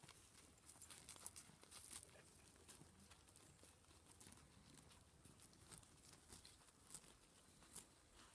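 Faint, irregular crisp ticks and tearing of an alpaca cropping grass close by, with a burst of clicks about one to two seconds in.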